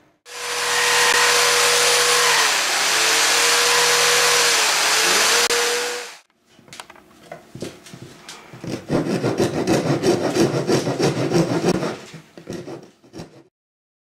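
An electric saw cuts notches in a pine board for about six seconds, its motor pitch dipping and recovering as it bites into the wood. A few seconds later a hand file rasps the cut notch with quick back-and-forth strokes.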